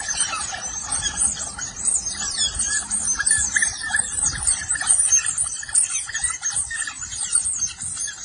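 A pack of smooth-coated otters fighting, many animals squealing and chirping over one another in a constant, high-pitched, overlapping din: aggressive territorial calling between rival family groups.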